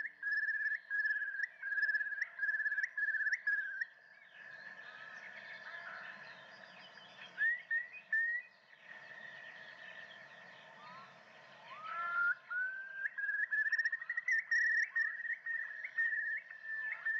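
Wild birds calling. One bird repeats a short whistled note about twice a second, then many fainter chirps overlap, and about three-quarters of the way through rising whistles lead back into a fast run of repeated notes.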